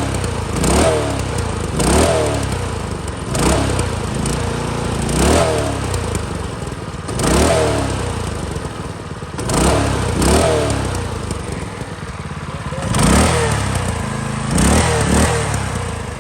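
A small single-cylinder minibike engine of about 208 cc running and being blipped by hand: the revs rise and fall back about every one to two seconds. It is running on two-year-old gas left in its original carburetor, with the choke off and nothing done to it.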